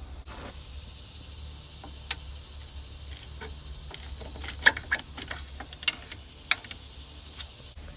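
Flat-blade screwdriver clicking and tapping against the plastic mounting bracket of a Mustang's engine computer as it pries at a clip. About five sharp clicks, the loudest around halfway through, over a steady hiss and low rumble.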